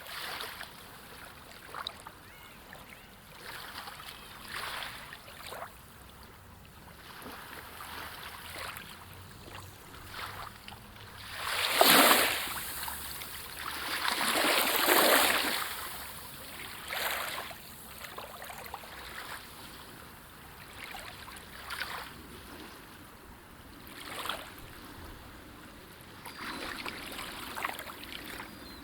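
Waves breaking and washing up on a beach, the surf rising and falling in repeated swells, with the two loudest breakers about halfway through.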